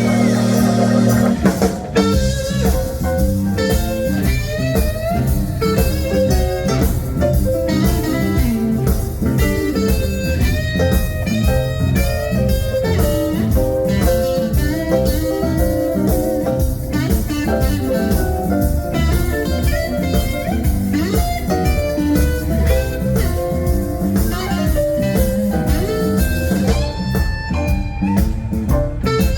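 Live blues band playing an instrumental passage: an electric guitar solos in quick runs with bent notes over drums. A held chord breaks off about a second and a half in.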